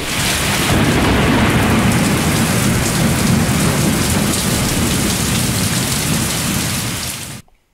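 Rain-and-thunder sound effect: a loud, dense hiss of rain over a low rumble, which starts abruptly and cuts off sharply about seven seconds in.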